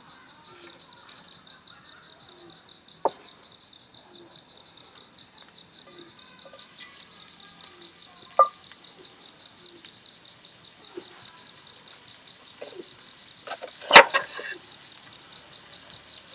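Crickets chirring in a steady, high, pulsing trill. Over it come a few sharp knocks and clinks, the loudest cluster about fourteen seconds in.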